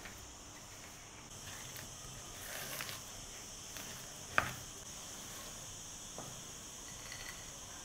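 Silicone spatula stirring and scraping soft butter and sugar in a glass bowl: faint, gritty scraping, with one sharp click about four seconds in.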